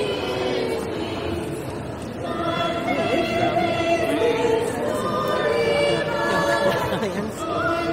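A cappella vocal group singing in harmony, several voices holding sustained chords that move to new notes every few seconds.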